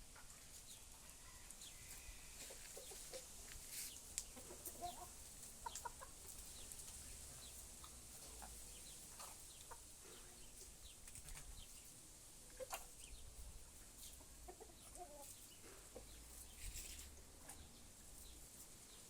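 Chickens clucking faintly, short scattered calls coming now and then, with a few sharp ticks among them.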